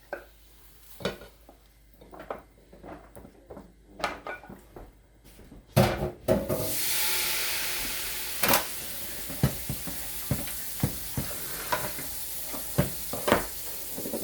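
A utensil clinking and scraping against a pan of sauce-coated chicken wings. About six seconds in a steady hiss starts suddenly and slowly fades, with more clinks over it.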